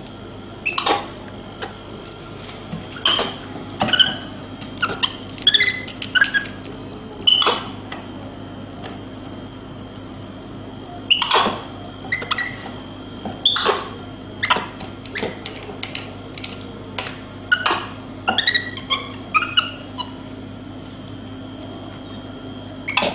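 A capuchin monkey handling a plastic drink bottle and twisting off its screw cap: irregular clusters of short clicks, taps and small squeaks.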